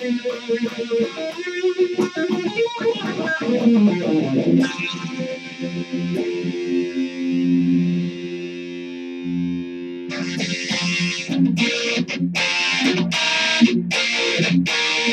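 Electric guitar played through distortion. It plays a line of single notes, then a long held note, then from about ten seconds in distorted chords struck in short choppy bursts with stops between them.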